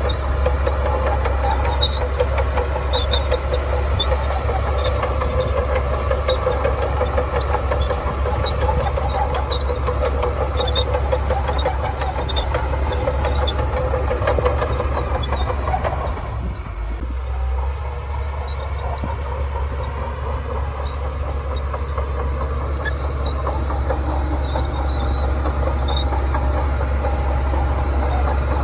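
Shantui DH17C2 bulldozer's diesel engine running steadily under work, with a deep hum. It dips briefly about halfway through, then carries on a little lighter.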